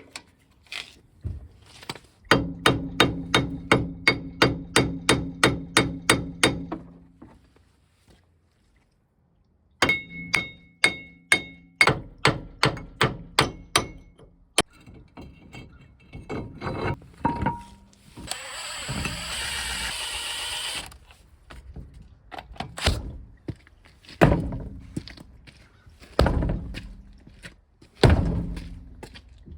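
Hammer blows on steel, knocking the worn wheel bearing hub assembly loose once its three bolts are out. There are two fast runs of about three ringing strikes a second, a hiss lasting about three seconds midway, then a few single heavy blows near the end.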